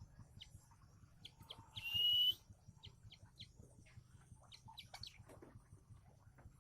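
Eagle chick calling: one loud, high-pitched cry of about half a second, about two seconds in, among short faint chirps and ticks.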